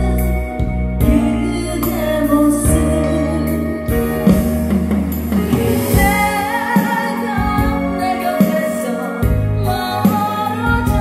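A singer's voice singing a slow Korean ballad in G-sharp minor over a backing accompaniment, with vibrato on the held notes in the second half.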